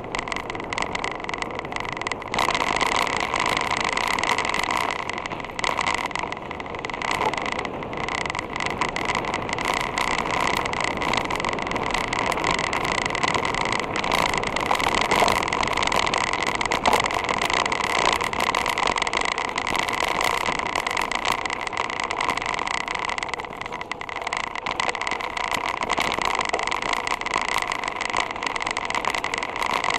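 Wind noise and road noise on a bike-mounted camera as a mountain bike rolls along, with many small knocks and rattles from the tyres and frame going over rough concrete and loose gravel.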